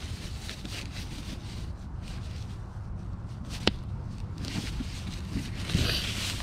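Cloth helmet bag rustling and rubbing as it is worked off a helmet by hand, over a steady low rumble. There is one sharp click a little past halfway and a louder rustle near the end.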